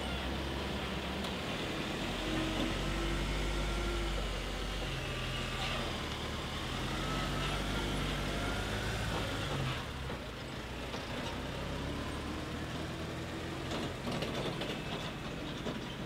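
Iveco Daily flatbed truck's engine running as the truck pulls away and drives off, a steady low hum that eases off a little about ten seconds in.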